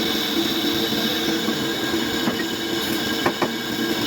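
A metalworking machine running steadily with a constant hum, during work on a car flywheel, with a few sharp clicks about two seconds and about three seconds in.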